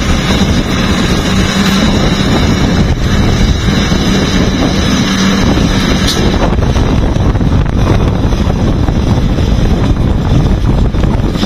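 Wheel loader's diesel engine running as the machine drives, with a steady hum that fades about five and a half seconds in, under heavy wind rumble on the microphone.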